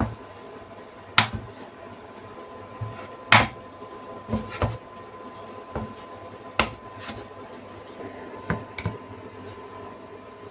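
Kitchen handling sounds: scattered knocks and clinks of dishes and utensils being set down and moved, about eight in ten seconds, over a faint steady hum.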